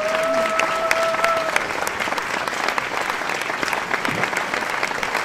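Audience applause, a steady patter of many hands clapping, with one long held cheer rising over it in the first second and a half.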